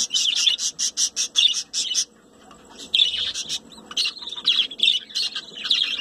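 Colony of budgerigars chirping: a rapid run of short high chirps for about two seconds, a brief lull, then chattering chirps again from about three seconds in.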